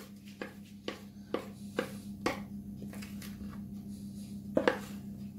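Metal spoon scraping and tapping against a plastic mixing bowl while thick cake batter is poured out, with light clicks about every half second and a louder double knock near the end. A steady low hum runs underneath.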